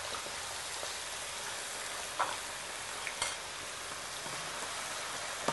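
Cubed potatoes frying in a pan of hot oil, a steady sizzle. A few light clicks of utensils against the pans come about two and three seconds in and again at the end.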